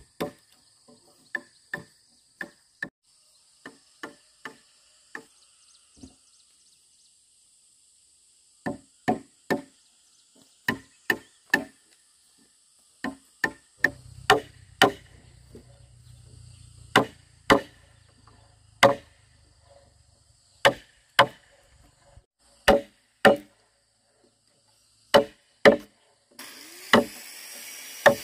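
A tool striking wood in sharp blows at an uneven pace, often two or three in quick succession, with a short lull about six seconds in. Near the end a steady rushing noise starts up.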